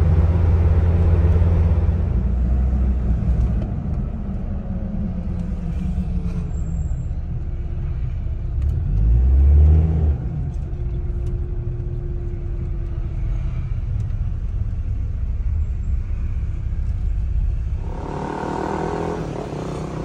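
Land Rover Discovery 2 running at low speed, heard from inside the cabin as a steady low rumble. There is a brief louder low surge about nine seconds in, and the rumble drops back near the end.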